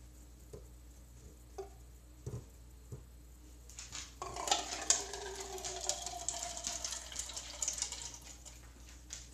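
Water being poured out for about five seconds, starting about four seconds in, with a tone that falls slowly as it runs; a few soft clicks come before it.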